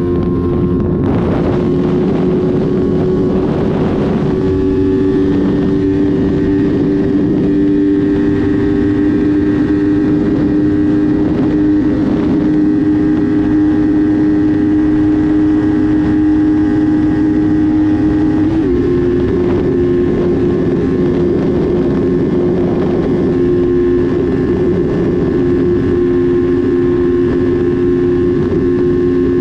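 R3 motorcycle engine running at a steady, fairly high engine speed, its note holding and then dropping slightly in pitch about nineteen seconds in, with wind noise rumbling on the microphone.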